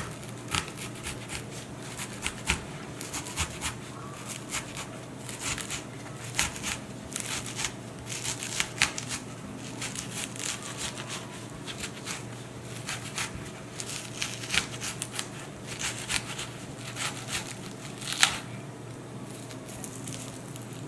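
Knife cutting into a raw onion: a run of crisp, irregular crunching cuts and crackles, with a sharper crack about eighteen seconds in, over a faint steady hum.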